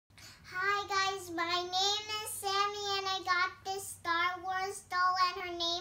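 A young girl singing a short tune in a series of held notes, phrase after phrase with brief pauses between.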